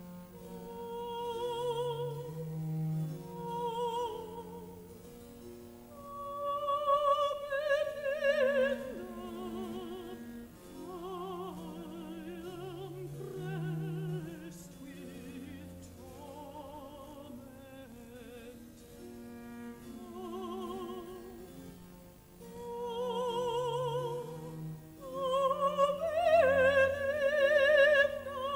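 Operatic singing with wide vibrato over a classical string accompaniment with sustained low notes. The phrases swell, and the loudest passage comes near the end.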